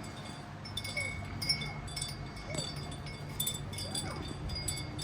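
Wind chimes ringing irregularly, several fixed high notes struck again and again, over a steady low hum.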